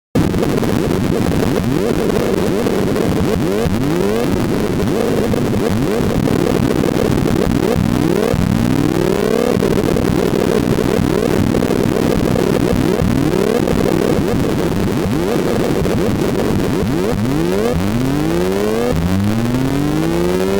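Computer-generated sorting-algorithm sonification: a rapid, unbroken stream of short synth pulses with a square-wave sub-oscillator, each pulse's pitch set by the value of the bar being compared or moved. Repeated rising pitch sweeps run through it and crowd together near the end.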